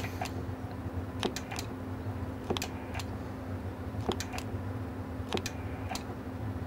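Sharp, irregular clicks, some in quick pairs, over a steady low electrical hum from the bench setup.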